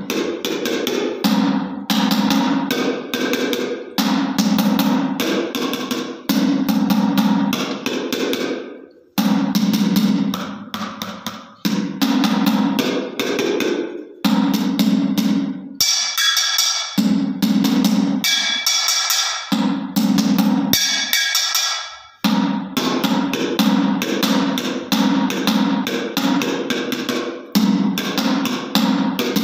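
Metal spoons drumming a fast rhythm on a homemade scrap drum kit: quick hits on upturned plastic buckets and a plastic tub, mixed with strikes on a metal plate and pan. About halfway through, a few seconds of ringing metal hits stand out before the bucket drumming takes over again.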